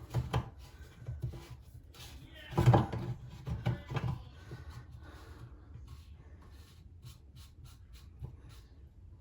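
Knocks and bumps of a sink drain tailpiece and its nut being handled and fitted under a bathroom sink, the loudest about two and a half seconds in, followed by a run of light, quick clicks.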